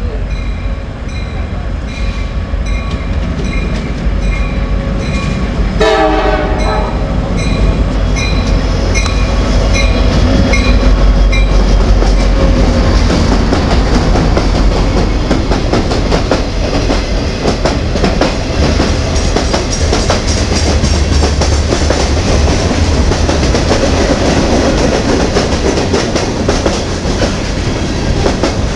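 CSX freight train passing close by: the diesel locomotive's low rumble, with a bell dinging about twice a second and one short horn blast about six seconds in. From about twelve seconds on, the louder, steady rattle and clickety-clack of boxcars rolling past.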